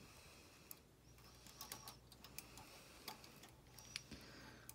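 Faint, scattered clicks of a latch tool against the metal needles of a flatbed knitting machine as stitches are bound off by hand.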